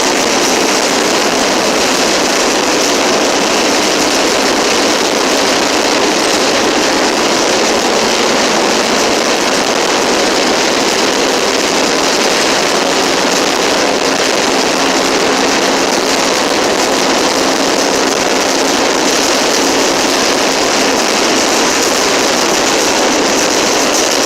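A train rolling on the rails, a loud, steady rush of wheel and rail noise that does not let up. A faint low hum joins it a little past the middle.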